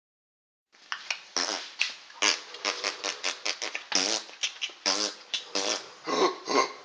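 A man making silly mouth noises: a quick, irregular string of raspberry-like sputters and short pitched vocal blurts, several a second, starting about a second in.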